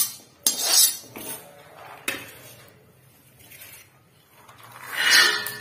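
A few scrapes and knocks of metal on an iron kadhai in the first two seconds. About five seconds in comes a growing rush as the second batch of raw peanuts is poured into the pan, with the iron briefly ringing.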